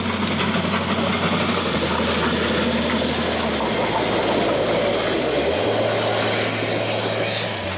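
A Harz narrow-gauge steam train passing close by: the locomotive goes past, then its coaches roll by with a steady noise of wheels on the rails, easing slightly near the end.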